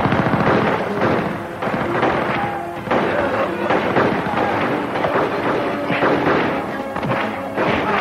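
Repeated gunshots from guns fired upward, a rapid string of sharp cracks, over a dramatic music score.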